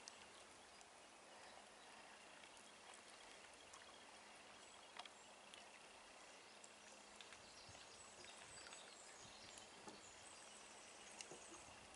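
Near silence: faint outdoor ambience, a steady soft hiss with a few small clicks.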